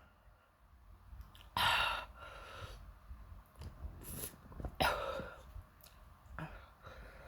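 A person with an itchy nose makes two sudden breathy bursts about three seconds apart, like small sneezes or coughs, with softer short breaths and sniffs between them.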